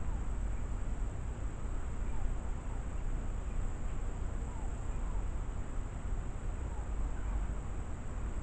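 Steady outdoor ambience: a low rumble of wind and handling on a phone microphone, with faint insects buzzing.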